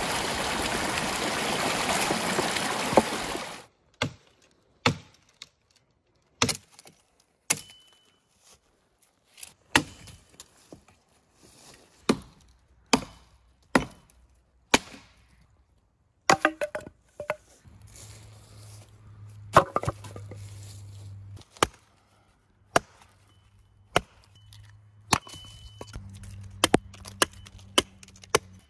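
Rushing stream water for the first few seconds, cutting off abruptly, then a small hatchet chopping wood: a long series of single sharp strokes roughly a second apart.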